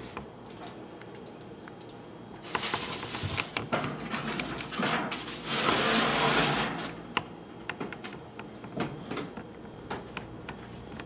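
A foil-lined baking tray being slid into an oven on its metal rack, with scraping, foil crinkling and clatter for several seconds, followed by scattered clicks and knocks from the oven door and controls.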